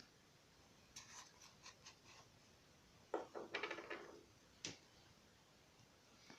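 Faint handling noises of small objects on a work surface: scattered light clicks, a short rattling clatter about three seconds in, and a single sharp click a moment later.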